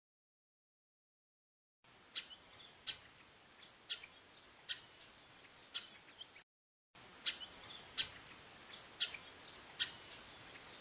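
Female chestnut-capped blackbird giving short, sharp calls, repeated about once a second, over a steady high insect trill. The sound starts about two seconds in and breaks off briefly in the middle.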